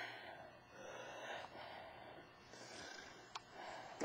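A person breathing heavily close to the microphone: several noisy breaths in a row, with a small click near the end.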